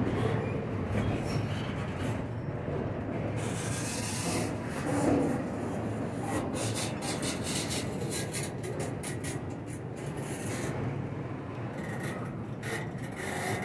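Norfolk Southern freight train rolling past, its cars making a steady rumble on the rails. Stretches of high hiss and rapid clicking come and go from a few seconds in until near the end.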